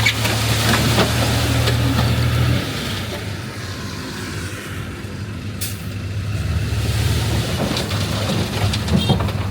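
Heavy diesel earthmoving machinery running: the engine drones loudly, eases off about two and a half seconds in and builds up again near the end, with scattered clanks and a short hiss near the middle.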